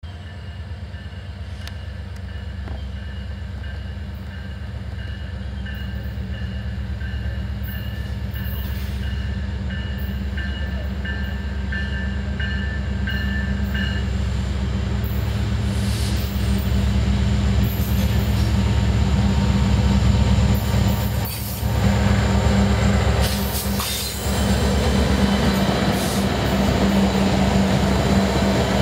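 Norfolk Southern diesel freight locomotive approaching with a grain train, its engine rumble growing steadily louder as it nears and pulling close by at the end.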